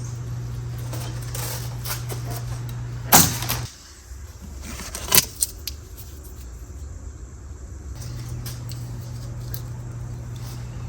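Packaging being handled: a few sharp knocks and light clicks and rustles over a steady low hum, which drops out for a few seconds in the middle.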